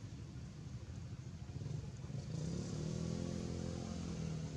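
Low rumble of a motor vehicle engine, with a pitched engine note that swells and then fades over about two seconds past the middle, as the vehicle passes.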